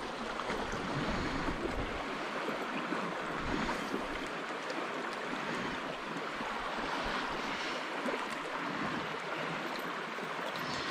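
Shallow stream current running over a pebble bed around the wader's boots: a steady rushing of moving water.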